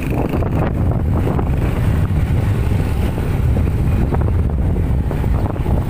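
Wind buffeting the microphone over the steady low engine and road noise of a moving motorcycle.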